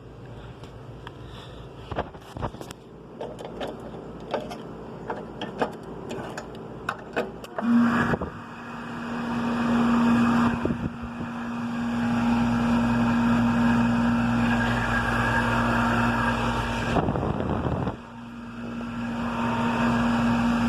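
Clicks and knocks of handling on a Goodman heat pump's outdoor unit, then the unit starts up about a third of the way in: a loud, steady hum with fan air noise. It runs after the bad capacitor has been replaced, and breaks off briefly near the end before picking up again.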